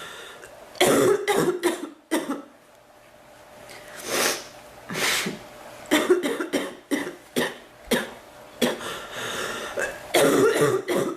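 A woman coughing in short fits of several coughs each, with two breaths drawn in the middle between fits. It is a cough that she feels is drying up a little.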